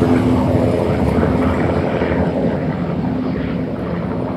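Light helicopter flying low overhead: the steady rapid chop of its rotor over the engine's drone, growing slightly fainter.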